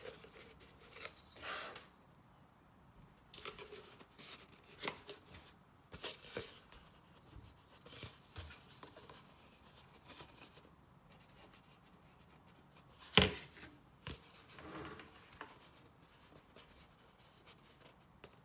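Plastic yogurt tub, lid and cup being handled: irregular rubs and light clicks of plastic on plastic, with one sharp click about 13 seconds in.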